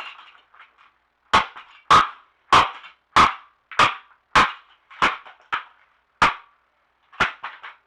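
A golf club striking again and again at a plastic clock radio: about a dozen sharp hits, roughly one every half-second or so, with a quick run of three near the end.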